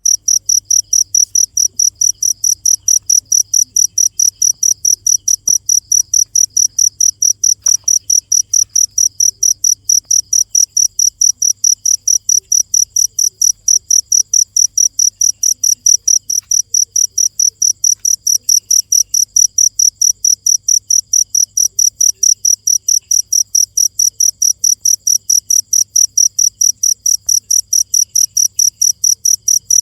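A cricket chirping steadily and loudly, a high-pitched pulse about three times a second.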